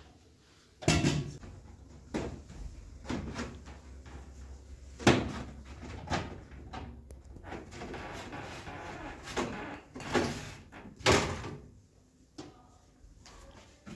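Refrigerator doors, drawers and shelves being opened, shut and handled while the fridge is cleaned out: a run of separate knocks and bangs, the loudest about a second in and about five seconds in, with a few seconds of steady hissy noise in between.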